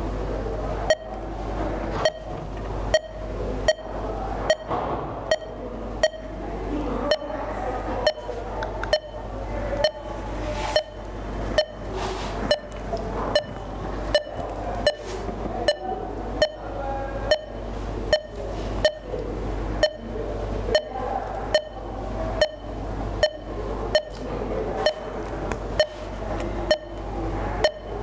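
Patient heart-monitor sound effect beeping steadily about once a second, over a low steady hum.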